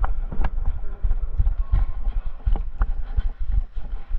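Footsteps and irregular sharp knocks over a low rumble of handling noise on the microphone.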